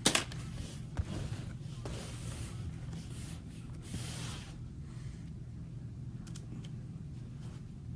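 Trading card packs and cards being handled: a sharp click at the start, then rustling and rubbing of wrappers and card stock in two stretches, with a few faint ticks near the end over a steady low hum.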